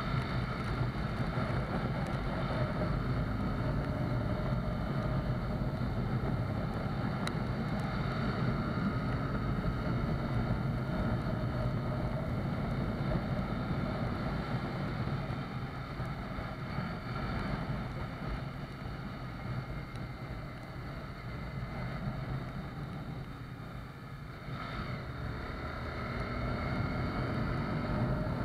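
Honda CBR250R's single-cylinder engine running on its stock exhaust while riding in rain, under steady wind rush on the microphone and hiss from the wet road. The engine eases off and quietens for a stretch past the middle, then picks up again near the end.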